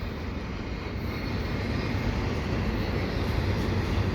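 Double-stack freight cars rolling quickly past: a steady rumble of wheels on rail, getting a little louder about a second in.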